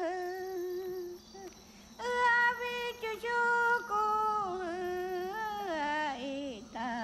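A high voice singing a slow, wordless-sounding melody of long held notes that slide downward at their ends, with a short break about a second in; near the end the line drops lower and a lower voice takes over.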